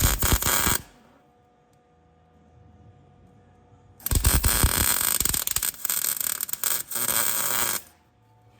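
Arc welding on steel plate: a short weld crackles for about a second, then after a pause of about three seconds a longer weld crackles for nearly four seconds, with brief breaks.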